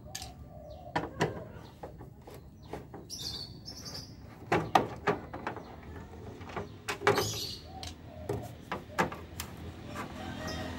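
Irregular clicks and taps as a screwdriver works at the front grille and headlight trim of a Suzuki Carry van, with a few sharper knocks about halfway through. Birds chirp briefly twice.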